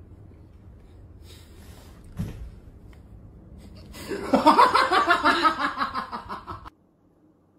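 A person's loud laughter: a quick run of ha-ha pulses lasting nearly three seconds, slipping a little lower in pitch and then cutting off suddenly. A single dull thump comes a couple of seconds earlier.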